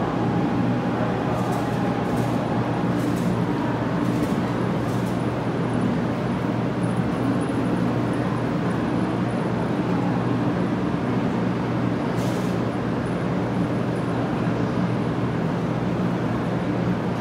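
Steady low hum of a 500 Series shinkansen in the 500 TYPE EVA livery standing at the platform, over even station background noise. A few faint short high hisses come in the first few seconds and again about twelve seconds in.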